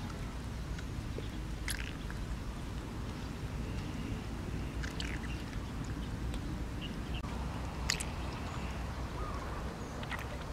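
Baby macaque sucking milk from a feeding bottle: a few short smacking clicks and soft gurgles over steady low background noise.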